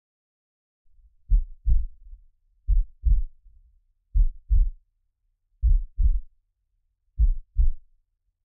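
Slow heartbeat: low double thumps, lub-dub, repeating about once every second and a half, five beats in all, starting about a second in.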